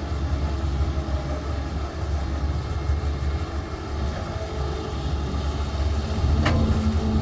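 Heavy construction machine's engine running with a steady low rumble, and a sharp knock near the end.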